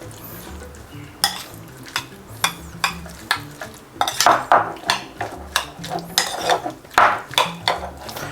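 A utensil stirring diced chicken in barbecue sauce in a bowl, knocking and clinking against the bowl many times at an uneven pace.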